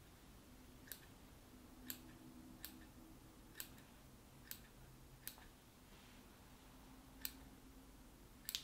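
Small scissors snipping stray synthetic fibers on a fly, about eight sharp snips roughly a second apart with a short pause just past the middle.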